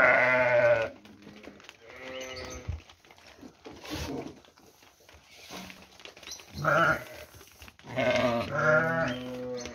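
Sheep bleating, about five calls in all: a loud bleat right at the start, fainter ones a couple of seconds and four seconds in, then loud bleats near seven seconds and again near the end.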